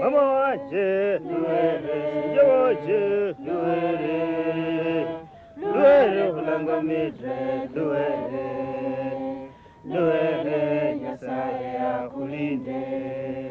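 Voices singing a slow, chant-like song with long held notes, breaking off briefly about five and a half and ten seconds in.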